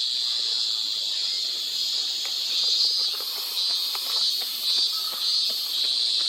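Steady, high-pitched insect chorus; about three seconds in, a higher, pulsing note joins at about two pulses a second.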